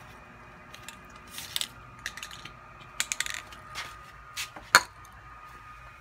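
Light clicks and knocks of a spray can and small parts being handled on a metal work table, with a few short hissy puffs. The loudest sound is one sharp knock near the end.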